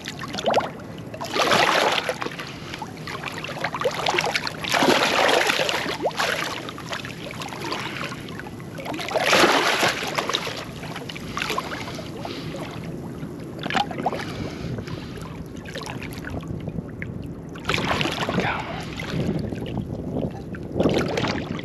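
Large conger eel thrashing at the surface beside a small boat while held by the trace, churning the water in repeated surges of splashing, with water sloshing against the hull between them.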